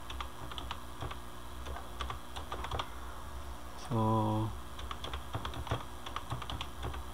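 Typing on a computer keyboard: an irregular run of key clicks over a steady low hum.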